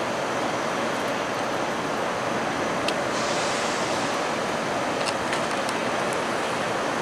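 Steady rushing noise of a rail yard as a passenger train's last car rolls slowly into the station shed. A few sharp high ticks come through, around three and five seconds in, with a short hiss just after the first.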